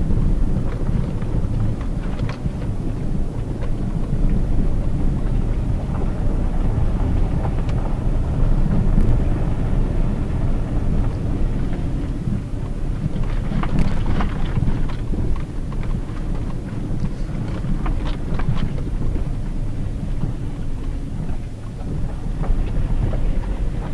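In-cabin sound of a Hyundai Tucson JM with a 2.0-litre petrol engine driving slowly on a rough dirt road: a steady low rumble of engine and tyres, with scattered knocks and rattles, most of them about halfway through and again a few seconds later.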